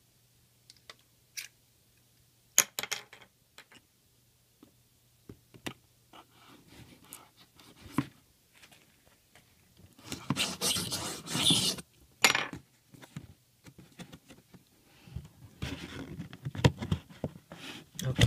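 Cardboard box and packaging of a toy quadcopter being opened and handled: scattered clicks and knocks, with longer spells of scraping and rustling about ten seconds in and again near the end.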